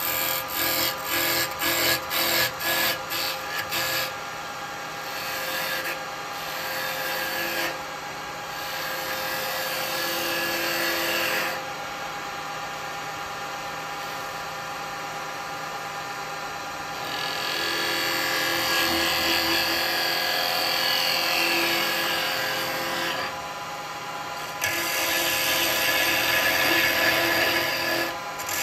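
Wood lathe running with a steady motor hum while a carbide turning tool cuts a small bowl blank in several passes, with a rasping hiss during each cut. The first few seconds are a fast run of short, sharp strokes, and longer cuts follow, separated by pauses where only the lathe hums.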